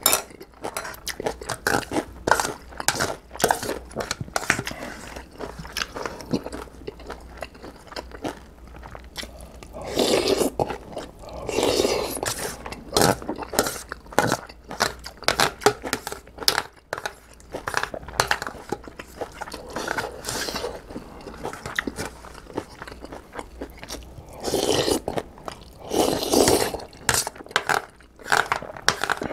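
Close-miked eating of instant ramen and kimchi: steady chewing with many quick clicks, and two longer slurps lasting a couple of seconds each, about ten seconds in and again near the end.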